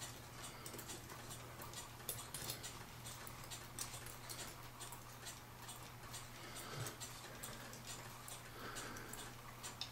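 Faint, irregular small clicks and ticks of a cuckoo clock's brass movement being handled as a gear is fitted back onto it.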